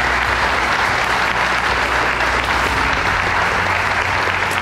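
Congregation applauding, a steady dense clapping that keeps up throughout.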